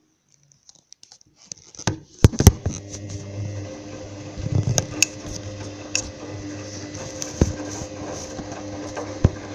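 Hoover Dynamic washing machine: after a moment of quiet and a couple of clicks, the drum motor starts and runs with a steady hum while the drum turns, with scattered knocks from the load tumbling.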